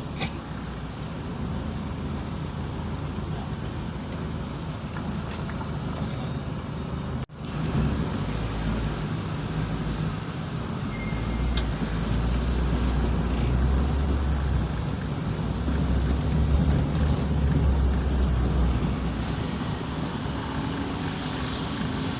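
Ambulance engine and road noise while driving, a steady low drone that grows heavier in the second half, with a brief cut just after seven seconds.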